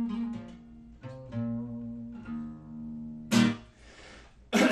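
Acoustic guitar: a few single notes picked and left to ring, then two loud, sharp strums about three and four and a half seconds in.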